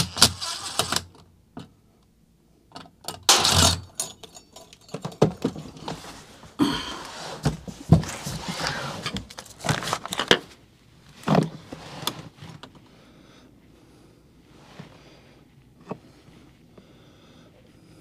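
A cordless driver runs in short bursts, backing screws out of a small sheet-metal access cover on an air handler's cabinet, followed by several seconds of rattling and clunking as the cover and tools are handled.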